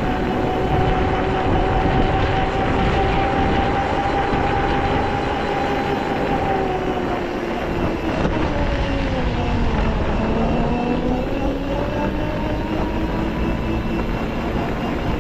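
Quad bike engine running under way, with wind and road rumble. Its steady pitch drops about eight seconds in as the quad slows, then rises again as it picks up speed.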